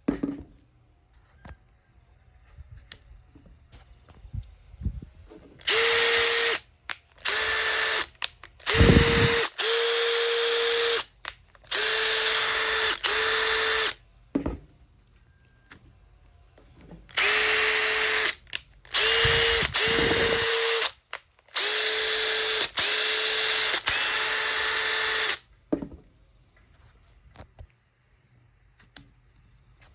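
Makita TP141D 18V cordless 4-mode impact driver running free in short trigger pulls, about a dozen one-to-two-second bursts of steady motor whine in two groups, with short pauses between them.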